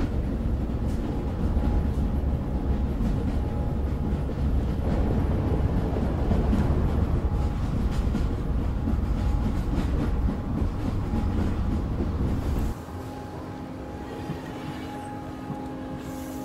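A loud, low rumbling noise that cuts off abruptly about three-quarters of the way through. Soft, sustained musical tones follow, the start of the song's intro.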